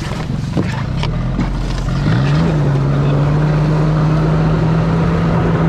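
Snowmobile engine running, revving up about two seconds in and then holding steady at a higher pitch.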